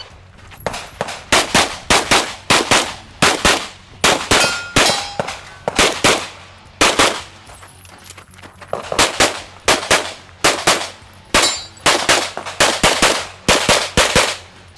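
Rapid fire from an open-division competition pistol during a timed practical-shooting run: about thirty sharp shots, mostly in quick pairs. There is a short pause about halfway through while the shooter moves, and the firing stops near the end.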